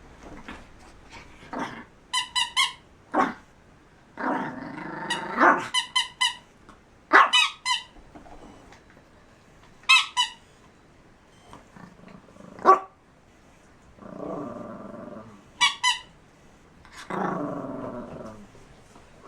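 A dog playing with a squeaky rubber toy: quick runs of two to four high squeaks, with three longer growls in between.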